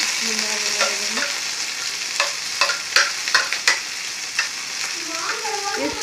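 Chopped onion, capsicum and green chillies sizzling in hot oil in a frying pan as they are tipped in. A few sharp clicks of a spoon come near the middle while the last pieces are pushed off the plate.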